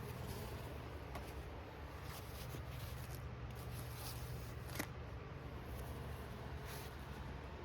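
Soft rustling and handling of unboxed items and their packaging, with one sharp click about five seconds in, over a steady low hum.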